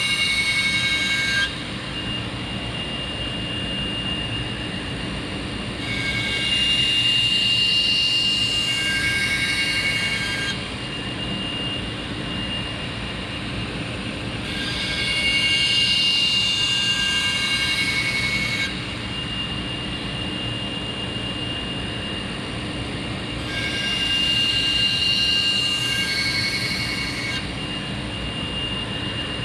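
Bader 2x72 belt grinder running with a 400-grit belt on an 8-inch contact wheel. A knife blade is ground against the belt in passes of about four seconds, roughly every eight seconds, each adding a louder, higher grinding hiss over the steady running of the grinder. The passes take metal off to raise a burr, rolling the edge over.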